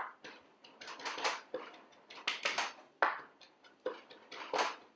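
Chef's knife chopping fresh thyme on a plastic cutting board: a quick, irregular series of sharp taps as the blade strikes the board.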